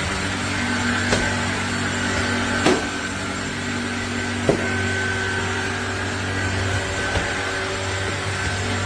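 Cordless stick vacuum (Kenmore DS1020) running steadily with a whirring motor hum, broken by four short sharp clicks.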